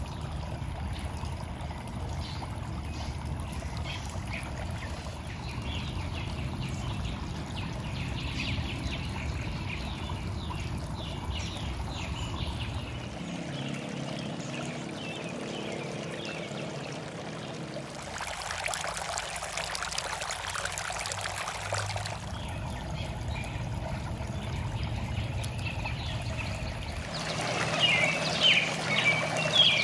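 Steady sound of trickling, running water, with small birds chirping now and then. The chirps are clearest near the end.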